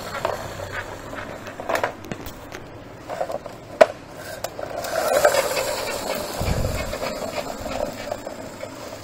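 Plastic friction-powered toy dump truck rolling on a stone floor, its wheels and flywheel gearing making a light whirring rumble, with a few sharp plastic clicks and a louder spell about halfway through as it is pushed again.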